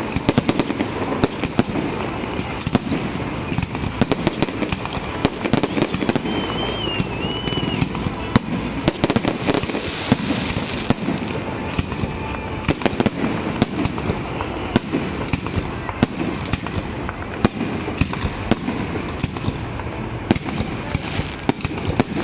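Fireworks display: a rapid run of sharp bangs from aerial shells bursting, over continuous crackling. A short wavering whistle comes in about six seconds in.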